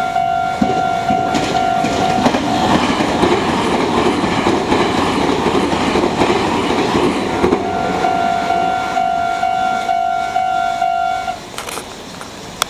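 Level crossing warning alarm ringing in a steady pulsing beat as a Meitetsu express of 3300 series and 3150 series electric trains passes. The wheels clatter over the rail joints and drown out the alarm for about five seconds in the middle. The alarm cuts off about eleven seconds in as the crossing clears.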